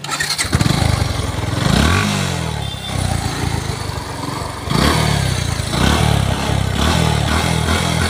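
Yamaha FZ-S V2's single-cylinder engine running through an aftermarket Akrapovic-style slip-on silencer. It is revved up once about two seconds in, then given a quick series of short throttle blips from about five seconds on.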